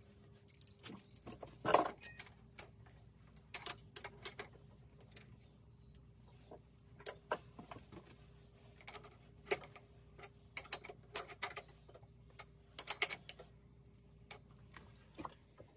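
Hand tools clicking and clinking against metal in irregular bursts while bolts at the top of a motorcycle's front forks are handled and checked. The loudest knock comes about two seconds in.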